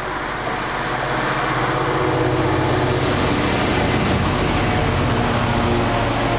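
Class 66 diesel locomotive's two-stroke V12 engine running under load as it passes close by, growing louder over the first two seconds, its engine note falling as it goes past. The loaded HAA coal hopper wagons follow, rolling over the rails.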